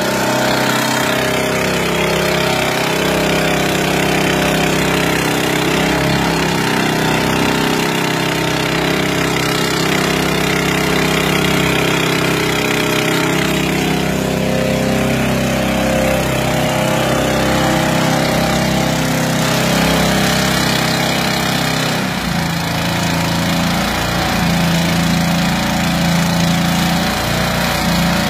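Small engine driving the water bowser skid unit's pump, running steadily under load; its note shifts about twenty-two seconds in.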